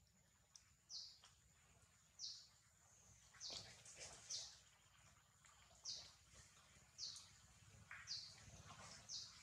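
A bird repeating a short, high, falling chirp about once a second, faint, over a thin steady high-pitched tone.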